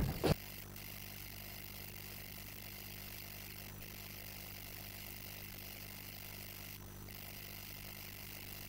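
Faint steady electrical hum with a low hiss, room tone of the hall's recording and microphone line; no other sound stands out.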